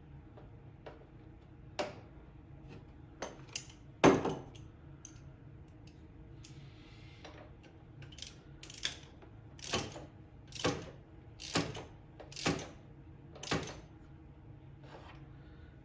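Metal hand tools clicking and clinking during a spark plug change on a mower engine: a sharp knock about four seconds in, then six short, even strokes about a second apart.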